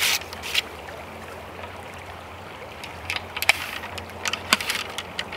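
Ramrod being worked in the bore of a .54 calibre Kibler Woodsrunner flintlock rifle while reloading: two scraping strokes near the start, then light metallic clicks and taps. A steady creek babble runs underneath.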